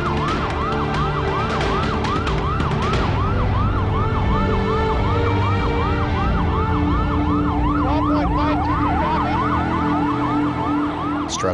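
Police car sirens in a rapid yelp, each rising wail repeating about two to three times a second. A second siren sounds out of step with the first from about eight seconds in.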